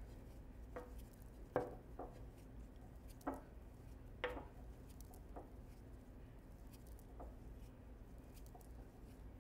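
Quiet handling sounds of ribbon being braided on a dream catcher hoop: a few soft taps and rustles over a steady low room hum, the loudest about a second and a half in.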